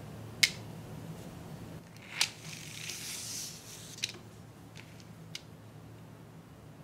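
Small sharp clicks of hard candy beads and a thin clear plastic tray being handled, with a short high rustle in the middle as the plastic tray slides off its paper card.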